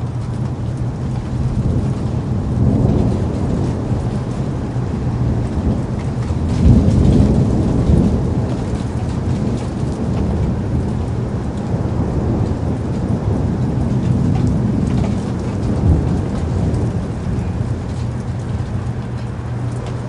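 Steady rain with a low rolling thunder rumble underneath, swelling loudest about seven seconds in.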